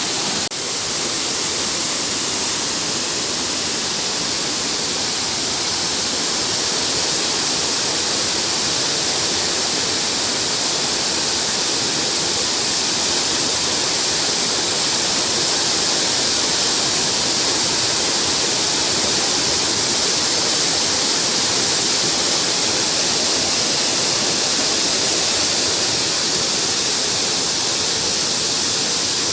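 Stream water rushing: a steady, even rush of flowing water.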